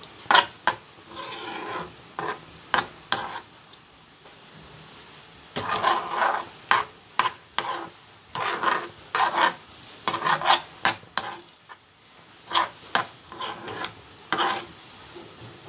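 A spoon stirring and scraping thick cheese white sauce around a frying pan, in quick irregular strokes with two short pauses.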